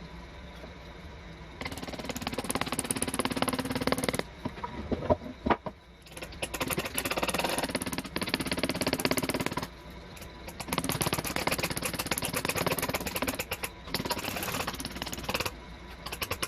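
A power tool working wood, with a fast chattering rattle, run in four bursts of a few seconds each with short pauses between. A few separate knocks fall between the first and second bursts.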